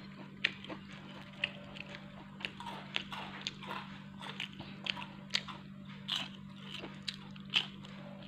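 Crunchy deep-fried potato-and-cheese sticks being bitten and chewed: a run of sharp, irregular crackling crunches.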